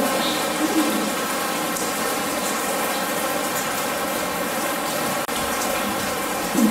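Steady artificial rain in a walk-in art installation, water pattering on sheet-metal roofs and surfaces as a continuous hiss. A short thud near the end.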